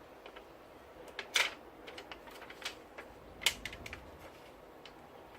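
A few sharp clicks and light handling noises, two of them louder, about a second and a half in and again about three and a half seconds in, as a sticky gel anti-vibration pad is handled for cutting.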